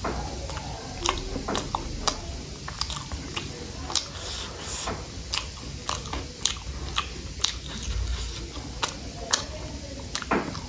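Close-miked mukbang eating: a person chewing spicy instant noodles and chicken, with irregular sharp clicks and smacks about once or twice a second.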